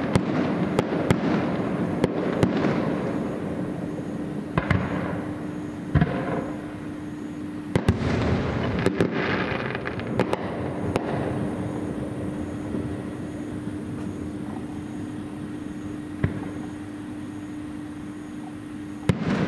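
Aerial firework shells bursting in a string of about a dozen sharp bangs at uneven intervals, some in quick pairs. A crackling rumble trails the bigger ones.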